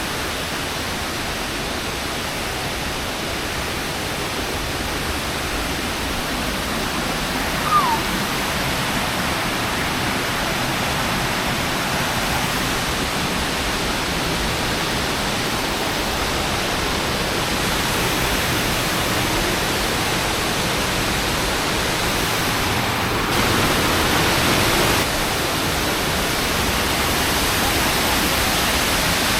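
Huangguoshu Waterfall: the steady rush of a large cascade of falling water, swelling a little for a couple of seconds near the end. A short faint chirp sounds about eight seconds in.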